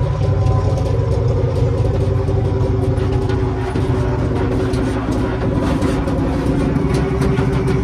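A large vehicle engine running steadily under load, with light clattering throughout.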